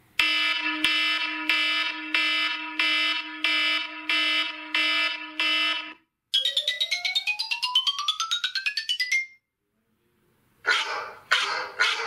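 iPhone ringtones played one after another. First an electronic ringing tone pulses about every two-thirds of a second for six seconds. Then a quick run of notes climbs steadily in pitch for about three seconds, and after a short pause a new tone begins with chiming strikes near the end.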